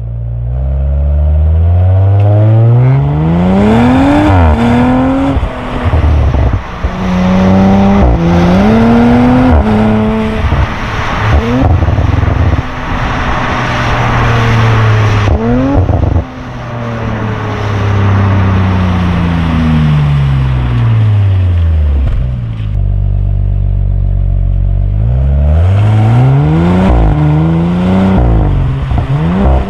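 Audi RS5 Sportback's twin-turbo V6 accelerating hard through several gears, the revs climbing and dropping back at each upshift. About halfway through it lifts off and the revs fall slowly, settling low and steady for a few seconds, then it pulls up through the gears again near the end.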